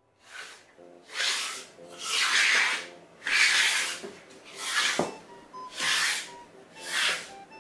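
Disposable wooden chopstick scraped back and forth across a smooth floor in repeated rasping strokes, about one a second, with a single sharp knock about halfway through.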